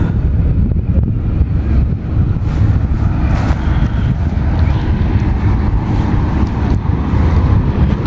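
Wind buffeting the microphone: a steady low rumble, with a light rustle of steps through grass in the middle.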